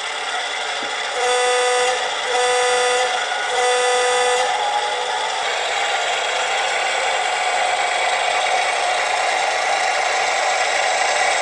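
LokSound 5 DCC sound decoder in an HO scale brass EMD E9 model locomotive sounding its diesel air horn in three separate blasts of nearly a second each, through the model's small speaker. The diesel engine sound then runs steadily.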